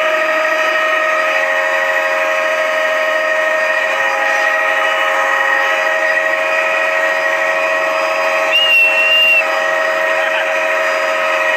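Helicopter cabin noise: a loud, steady high whine from the turbine engine and gearbox. A short higher tone joins for under a second near the end.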